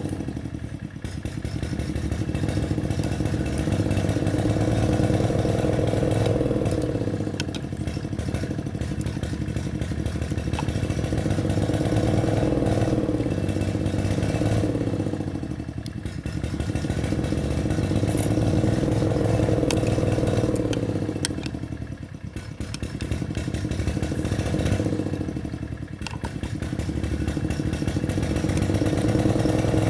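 Lawn mower engine running while being repaired, its speed dropping away and picking back up several times.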